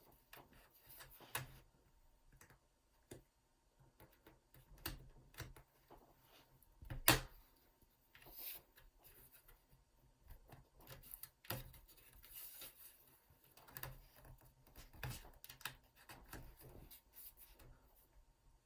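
Plastic snap-clips of a laptop's bottom cover clicking loose as a pry pick is worked and rubbed along the seam: scattered light clicks and scraping, with one sharper, louder snap about seven seconds in.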